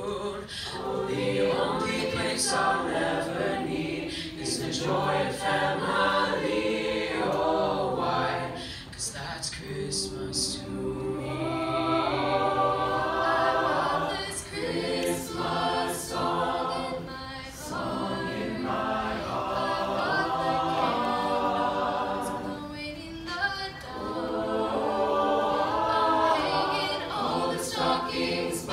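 Mixed youth choir singing a Christmas song a cappella, several voices in harmony, in phrases with short breaths between them.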